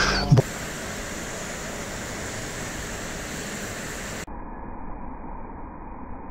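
Steady hiss of rain falling at night during a thunderstorm. About four seconds in it cuts to a duller, muffled rain noise.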